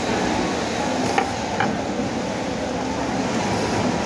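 Steady background noise of a garment workshop, with two short light clicks a little after the first second as the metal knife part is handled.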